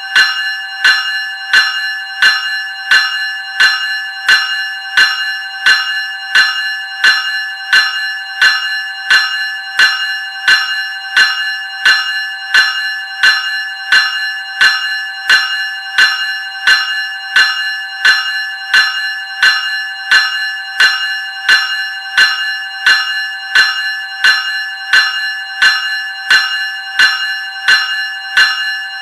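Graham 373 Series electric bell ringing, its gong struck over and over at an even, steady pace, each stroke ringing on into the next.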